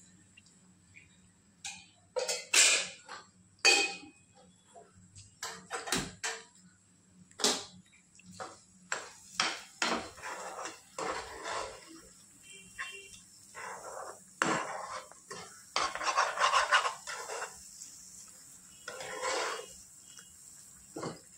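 Metal kitchen utensils and cookware clinking, knocking and scraping at irregular intervals.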